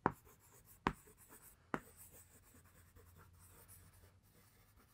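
Chalk writing on a chalkboard: three sharp taps in the first two seconds, then faint scratching strokes of handwriting that die away near the end.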